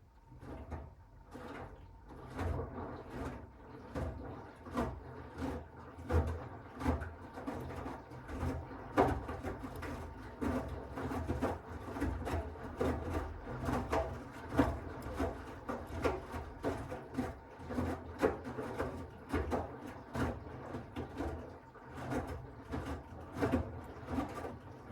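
Miele W1 Active WCA 030 front-loading washing machine turning its drum during the wash: laundry tumbling with repeated soft thuds and splashes over a low motor hum. The drum turn starts at the beginning and stops suddenly near the end.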